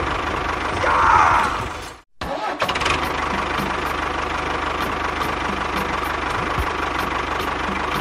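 Tractor engine idling steadily with an even low chugging; it breaks off abruptly for a moment about two seconds in, then carries on.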